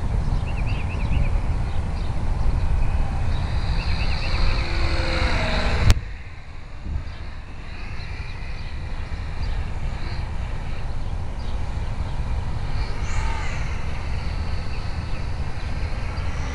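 Distant whine of an electric RC airplane's geared Himax brushless motor and 10x7 propeller, rising and falling in pitch as the plane manoeuvres and passes. Underneath is a low rumble of wind on the microphone. About six seconds in there is a sharp click, and the rumble eases after it.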